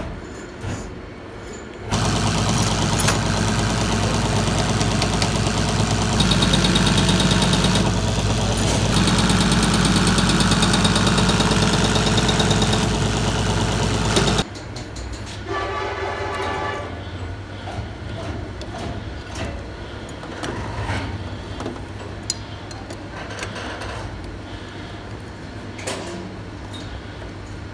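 Diesel injection pump test bench driving an inline diesel injection pump: a loud, steady mechanical hum starts about two seconds in and cuts off suddenly about halfway through. After it stops there are quieter workshop sounds with a few clicks.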